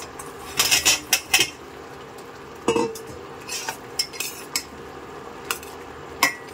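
A stainless steel bowl and spoon clinking and scraping against a steel pan as fried balushahi are tipped into sugar syrup and turned. There is a quick cluster of sharp clinks about a second in, then one clink at nearly three seconds that rings briefly, followed by scattered clinks.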